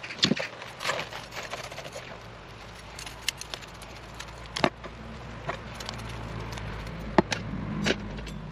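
Soil being knocked and shaken off a succulent's roots: sharp taps and clicks as the plant and its root ball are handled, with loose soil crackling. A low steady hum comes in about halfway through.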